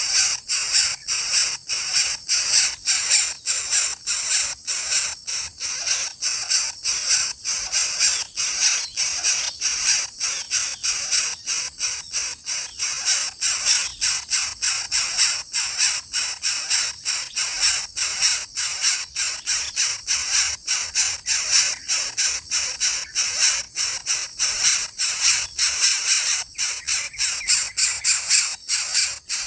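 Coucal chick giving harsh, hissing rasps over and over, about three a second, without a break.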